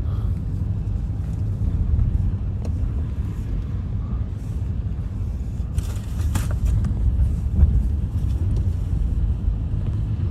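Car riding along a wet road, heard from inside the cabin: a steady low road rumble, with a brief rush of hiss about six seconds in.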